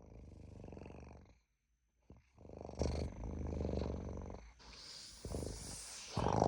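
Foley for a velociraptor: low, rattling growls in several bouts, with a breathy hiss about five seconds in and a sharper, louder call near the end.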